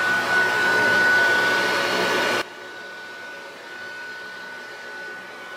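High-velocity pet dryer blowing with a steady high whine, the noise cats are afraid of. About two and a half seconds in, the loud rush of air cuts off suddenly, leaving a much quieter steady hum with the same whine.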